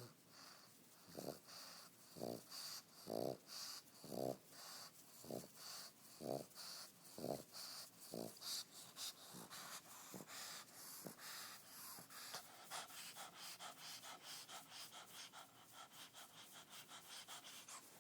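A sleeping pug snoring, with one loud, rasping snore about every second. About eight seconds in, the snores fade into lighter, quicker breaths of about three a second.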